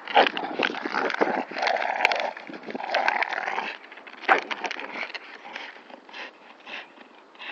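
Staffordshire bull terriers and a Patterdale terrier growling while tugging a crackling plastic bottle between them, loudest for the first three and a half seconds, with a sharp crackle about four seconds in, then quieter.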